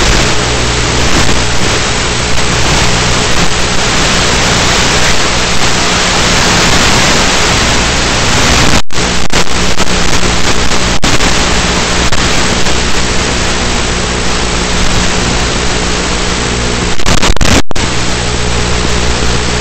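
Loud steady rushing hiss with a low steady hum from the ZOHD Talon in flight, heard through its onboard FPV camera: airflow and the plane's electric motor and propeller, mixed with static. The sound cuts out for an instant about nine seconds in and again near the end.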